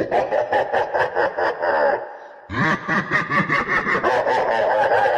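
A person laughing in rapid, rhythmic 'ha-ha' bursts, a meme laugh sound clip; the laugh fades out about two seconds in and starts again half a second later.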